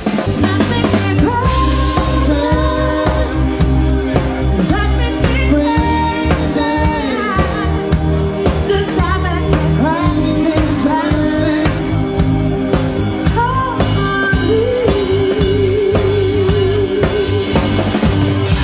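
Live band playing: a woman singing lead over a Nord Stage keyboard and a drum kit, with snare rimshots and bass drum keeping a steady beat. Near the end the singer holds one long note with vibrato.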